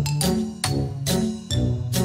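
Background music: a melody of struck notes, about two a second, over a bass line with a steady beat.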